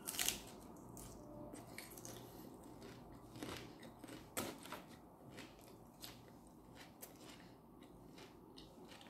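A person chewing a mouthful of lettuce wrapped around food, with soft crunches and wet mouth clicks now and then. The loudest click comes just after it starts.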